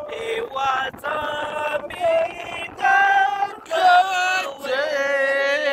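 Voices singing in long held notes, phrase after phrase, with short breaks between them.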